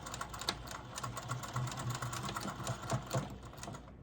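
Electric sewing machine running, its needle stitching in a rapid steady patter as it sews back and forth across the collar webbing to lock the buckle in; it stops just before the end.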